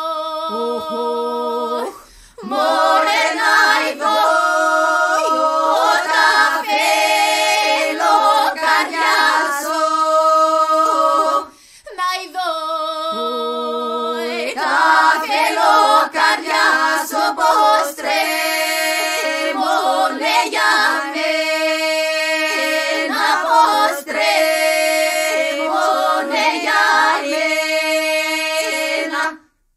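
Women's choir singing a Greek folk song a cappella in polyphony: one voice holds a steady drone while the upper voices move above it. The singing comes in long phrases, with short breaks about two seconds in and about twelve seconds in, and it stops just before the end.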